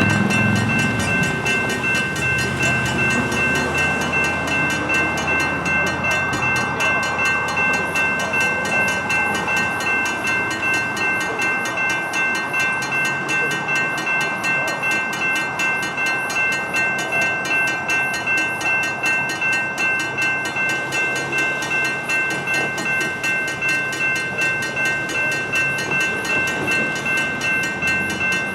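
Conrail Shared Assets freight train rolling past, its wheels clacking over the rails, with a bell ringing steadily at about two strokes a second. The locomotive's rumble fades in the first few seconds, and the cars keep rolling by.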